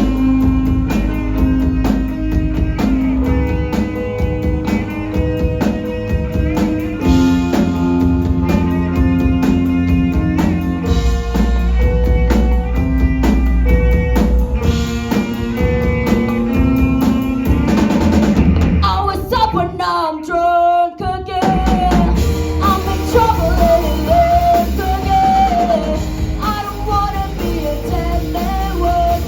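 Rock band playing live: drum kit, electric guitar, bass and keyboard, with a sung lead vocal. About twenty seconds in, the band briefly drops out, then the singing comes back in over the full band.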